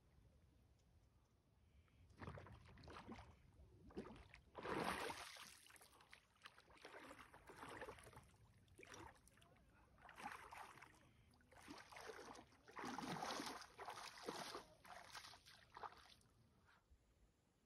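Lake water splashing and sloshing around a person's legs as he wades out of a lake. It comes in irregular surges from about two seconds in and dies away near the end.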